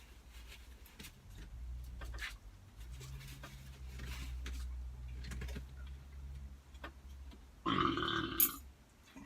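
A loud burp lasting under a second, near the end, over a low steady hum and scattered small clicks.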